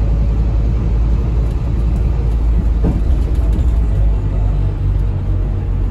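Scania K320HB bus heard from inside the passenger cabin: the low, steady rumble of its Scania DC9 five-cylinder diesel engine running, with road and body noise.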